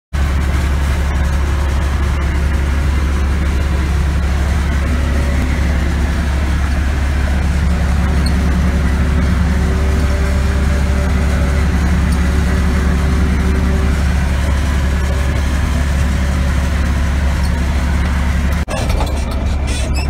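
John Deere self-propelled forage harvester running steadily under load as it chops standing corn for silage, its engine and cutterhead a deep drone heard from inside the cab. Near the end the sound briefly drops out and comes back with a run of sharp clicks.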